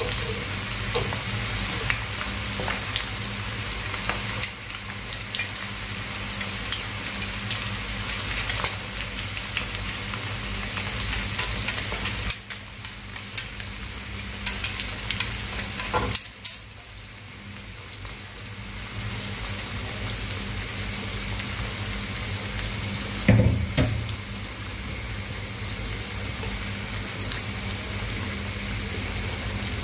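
Sliced shallots sizzling as they fry in hot oil in an aluminium wok, stirred with chopsticks, with small clicks over a low steady hum. The sizzle drops away a little past halfway and builds back, and there is one loud knock about three-quarters of the way through.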